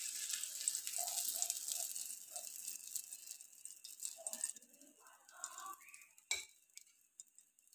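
Leftover oil sizzling on a hot tawa just after the gas flame is turned off, fading away over about five seconds with a few faint pops. A single sharp click comes near the end.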